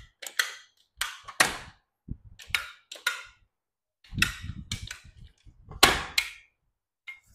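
Aluminium double telescopic ladder being retracted: its rung sections drop and nest one after another, giving a rapid series of sharp metal clacks.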